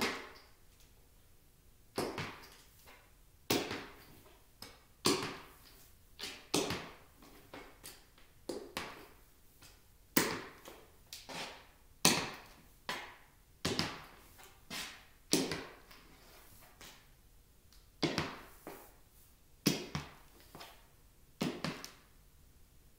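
Metal taps on high-heeled tap loafers clicking on a hardwood floor at a slow walk, about one step a second, with heel and toe often sounding as a quick pair of clicks. It pauses briefly twice.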